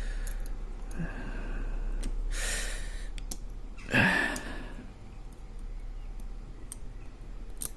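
A man's audible breaths: a long sigh about two and a half seconds in and a sharper exhale around four seconds, over scattered small clicks of greasy padlock parts being handled.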